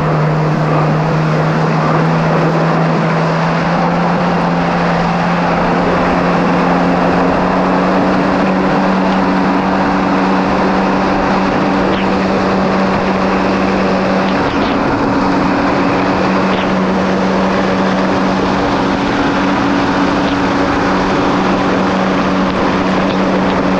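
Kawasaki SX-R 1500 stand-up jet ski's four-cylinder four-stroke engine running at steady high speed. It makes a continuous drone that steps up slightly in pitch a few seconds in, over the rush of water and spray off the hull.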